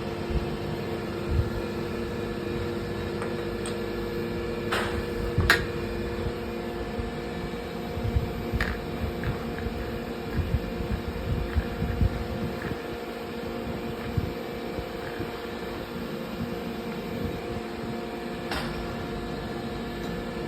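A steady mechanical hum with several fixed tones, with a few sharp clicks and irregular low knocks.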